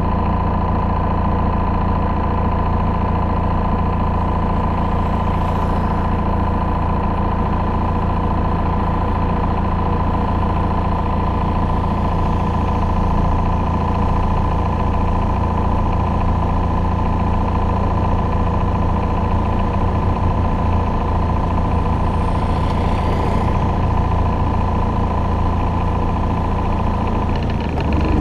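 Chevrolet Cruze 2.0 four-cylinder turbodiesel idling steadily through a modified exhaust (DPF, sports catalytic converter and full aftermarket exhaust system), with a deep, even drone.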